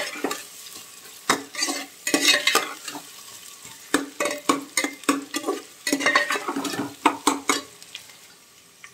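Sliced onions frying and sizzling in mustard oil in an aluminium pressure cooker while a steel ladle stirs them, scraping and knocking against the pot in irregular strokes, as the onions are browned. The stirring eases off near the end.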